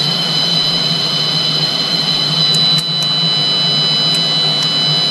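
Cam-drum cinema automation unit running its stop sequence: a steady machine hum and high whine, with a few sharp ticks in the second half as the cams trip the micro switches.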